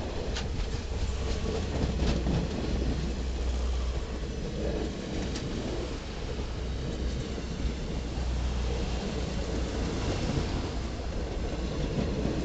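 Passenger train cars rolling past close by: a steady rumble of wheels on the rails, with a few sharp clicks from the wheels in the first half.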